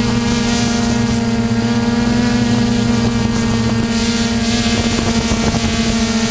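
Quadcopter's E-MAX 2213 935KV brushless motors and DJI 1038 propellers buzzing steadily in flight, heard close up from the camera on board. A lower part of the hum drops away about four seconds in.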